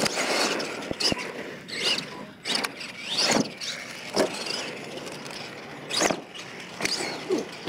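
Radio-controlled monster truck's motor whining up and down as it is revved, with its tyres churning the dirt. Several sharp thumps come as the truck lands off a jump and tumbles over.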